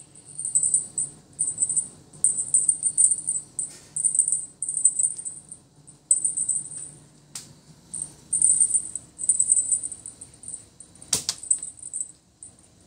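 Feather wand cat toy shaken and batted, giving high-pitched jingling in quick irregular bursts, with a sharp knock about eleven seconds in.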